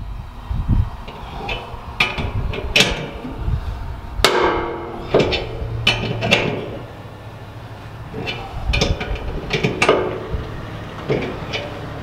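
Ball joint press being cranked with a wrench to force a tight, knurled hanger bolt out of a trailer's leaf-spring hanger: a dozen or so sharp metallic knocks and ringing pings at irregular intervals as the steel parts take the load.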